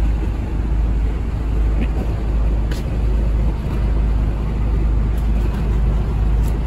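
Steady low rumble of an idling truck engine, with a few faint clicks.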